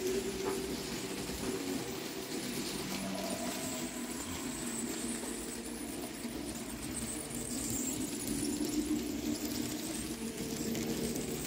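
N-scale model train running steadily on its track: the BB304 model locomotive's small electric motor whirring, with the wheels running over the rails.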